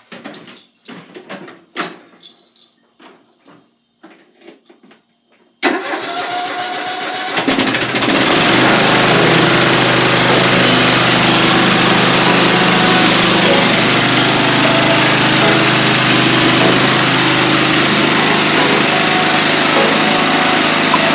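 A few light clicks and knocks, then a Husqvarna riding lawn mower's engine starts suddenly about five seconds in. After a couple of seconds it picks up and runs steadily and loud.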